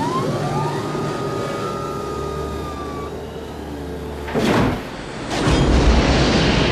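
F/A-18 fighter jet engine: a whine rising in pitch and holding, then a sudden loud whoosh about four and a half seconds in and a loud jet rumble from about five and a half seconds.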